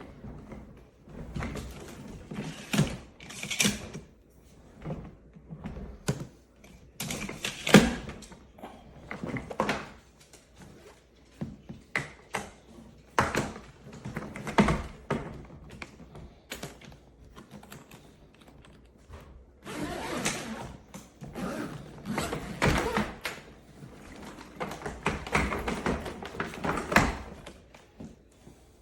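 A hard-shell ABS suitcase being handled: irregular knocks, clunks and clicks, with stretches of rustling and scraping.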